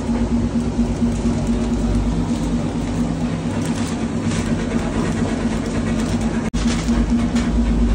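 Steady drone of bakery machinery: a low rumble with a constant hum on top, cutting out for an instant about six and a half seconds in. Faint crinkles of a plastic bread bag are heard over it.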